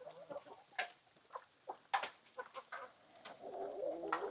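Chickens clucking: a run of short, scattered calls and a few sharp clicks, over a faint steady high whine.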